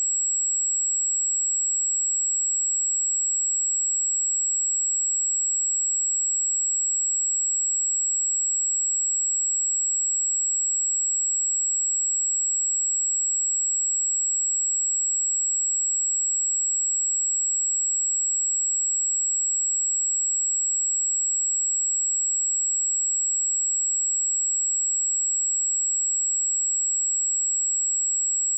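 A steady pure sine-wave test tone at 7695 Hz, a single high-pitched whistle-like tone held at constant level.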